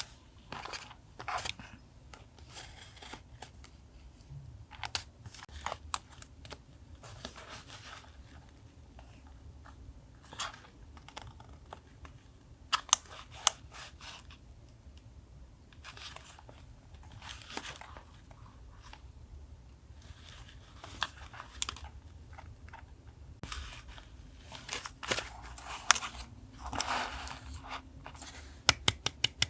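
Paper being handled and torn for a collage journal page: irregular rustles, rips and crinkles with scattered sharp clicks. A quick run of clicks starts near the end.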